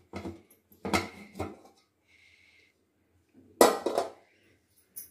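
The metal lid of an idli steamer being lifted off and set down, giving clanks and rattles of metal on metal. The loudest clank comes about three and a half seconds in.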